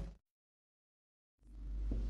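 Steady room tone with a low hum fades out a moment in and drops to dead digital silence for about a second, then fades back in: the recording's audio is gated or muted.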